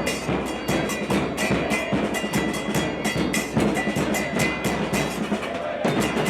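Supporters' drums pounding out a fast, steady beat of about four to five strokes a second, with a faint high tone held over it at times.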